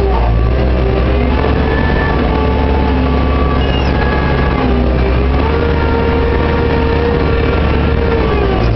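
JCB 532-120 telehandler's diesel engine running under load with hydraulic whine, heard inside the cab, as the boom lifts a bucket of topsoil towards the dump truck. The whine rises in pitch about five seconds in and falls away near the end.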